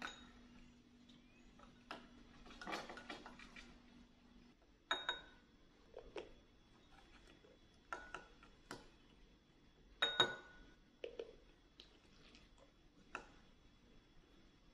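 Metal spoon clinking against a small porcelain bowl: a handful of separate sharp clinks, each ringing briefly, the loudest about ten seconds in.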